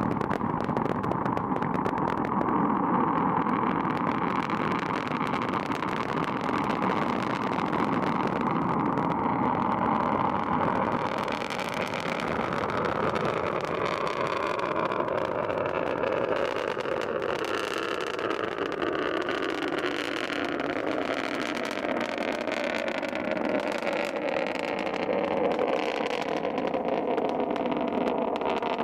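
Long March 4B rocket's first-stage engines firing through liftoff and ascent: a steady, loud rushing noise that continues as the rocket climbs away.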